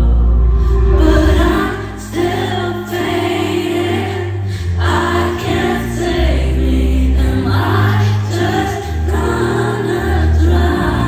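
Live pop concert music: a female singer and many voices singing together over a backing track of long, deep bass notes.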